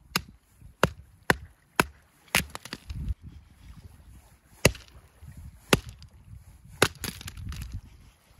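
Hatchet chopping into short birch rounds, splitting them into small pieces: a string of about eight sharp chops, quick at first, then slower after a short pause.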